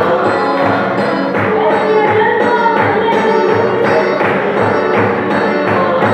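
Congregation singing together over a drum beating a steady rhythm about twice a second.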